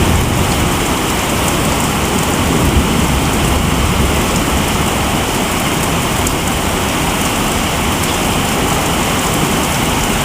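Heavy rain pouring down in a thunderstorm, a steady loud hiss.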